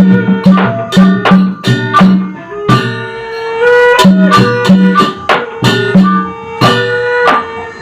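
Sasak gamelan ensemble playing a gending for wayang Sasak: ringing struck metal tones over a steady pattern of drum strokes and sharp, bright strikes several times a second.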